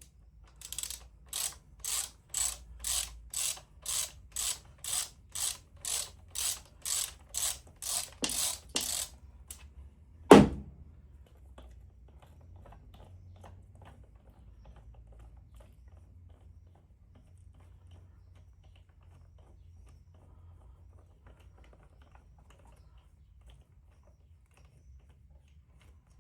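Hand file rasping back and forth on a part in about sixteen even strokes, roughly two a second, to file it down so it fits. A single sharp knock about ten seconds in is the loudest sound, followed by faint small clicks.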